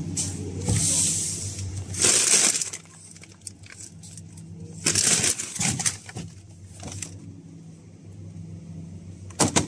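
Plastic packaging of frozen food crinkling as it is handled, in several short bursts, over a low steady hum.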